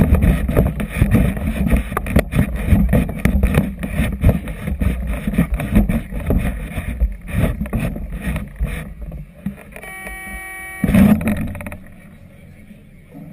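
Strong gusty wind buffeting the camera microphone in loud, irregular rumbles. About ten seconds in, a brief steady pitched tone of about a second cuts through, followed by a short loud gust; the rumble then drops away.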